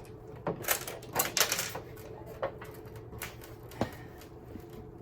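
Irregular clicking and clattering of hard parts being handled while a CRT television is taken apart: a quick cluster of clicks and knocks about a second in, then a few single clicks.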